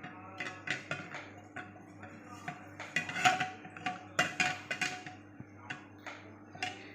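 A metal teaspoon clinking and tapping against metal cookware while ghee is spooned out: a series of irregular taps, a few leaving a short ring.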